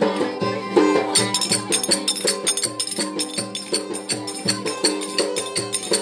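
Violin playing a lively Turkish folk dance tune, joined about a second in by a quick, even tapped percussion beat.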